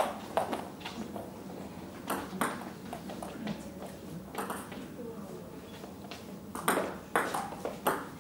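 Table tennis ball knocking off the rackets and the table: sharp separate clicks, a few near the start, scattered ones in the middle, and a quicker run of exchanges in the last second and a half as a rally is played.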